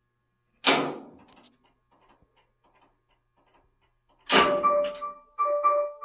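Whirlpool Cabrio top-load washer failing to start: a loud clunk from the machine about a second in, another near four seconds, and then a few electronic beeps as it shuts itself off with an F5 lid-lock error.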